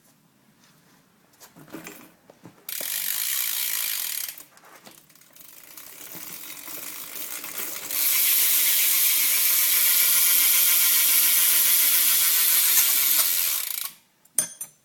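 Shadow Conspiracy Raptor rear hub on a BMX wheel freewheeling, its pawls clicking so fast they make a loud ratcheting buzz. A short burst of about a second and a half comes about three seconds in. Then the buzz builds up to a long loud steady run and stops suddenly near the end.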